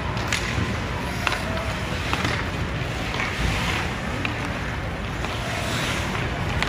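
Ice hockey rink noise: a steady rumble of arena ambience with a few sharp clacks, typical of sticks and puck on the ice, scattered through it.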